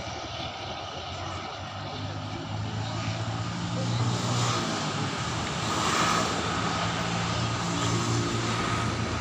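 Diesel train approaching: a steady low engine drone that grows louder about four seconds in and stays strong.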